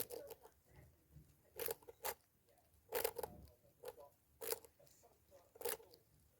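Pet rat crunching a hard snack close to the microphone: short, crisp crunches about once a second.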